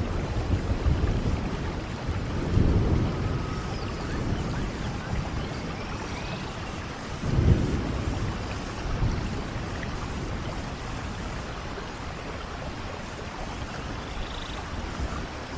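Heavy rain falling steadily with rolling thunder, its low rumble swelling about two and a half seconds in and most strongly about seven and a half seconds in, then easing off toward the end.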